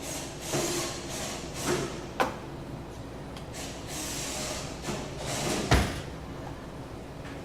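Clatter of espresso-making at the machine: stretches of hissing noise broken by sharp knocks, with one heavy thump about six seconds in.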